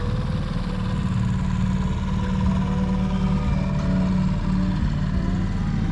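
A canal boat's inboard engine running steadily at low speed close by, a deep, even rumble.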